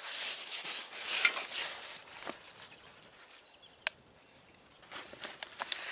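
Hand rummaging through a canvas rucksack: irregular rustling and small knocks of its contents being shifted, loudest in the first two seconds, with one sharp click about four seconds in.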